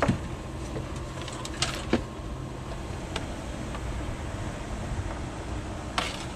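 A few sharp clicks and taps from handling tools and wire terminals at the switch panel, over a steady low rumble.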